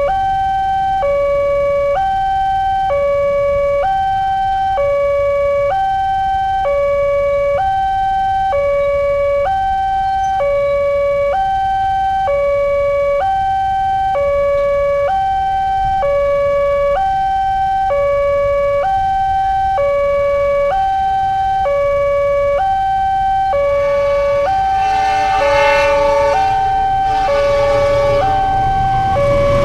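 Indonesian railway level-crossing alarm sounding: an electronic siren alternating between two tones, each held about a second, warning that a train is coming. Near the end the approaching train joins in, growing louder.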